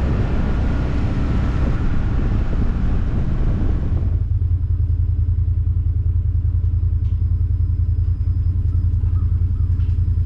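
Side-by-side UTV engine running as the vehicle rolls along, then settling to a steady low idle about four seconds in as it stops and waits at a gate.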